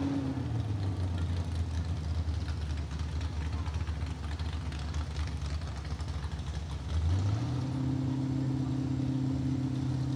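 Mini modified pulling tractor's engine idling, then rising to a faster steady speed about seven seconds in.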